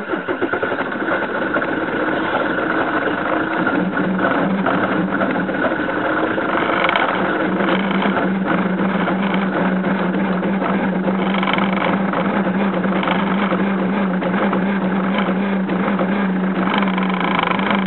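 Peugeot 406 diesel engine catching on a cold start, firing unevenly for about the first second, then settling into a steady idle at about 1000 rpm.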